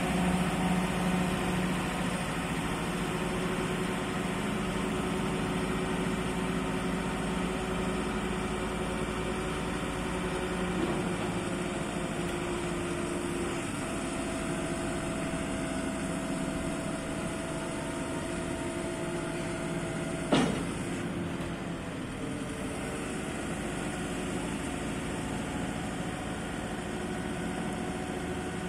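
JCB 540-170 telehandler's diesel engine running steadily while the hydraulic boom is raised and extended. About halfway through a steady whine comes in for several seconds and stops with a single sharp clunk, the loudest sound.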